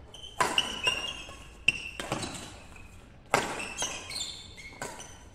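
Badminton rackets striking a shuttlecock back and forth in a doubles rally: several sharp hits, roughly a second apart, each echoing in the hall. Between them come short high squeaks of shoes on the court.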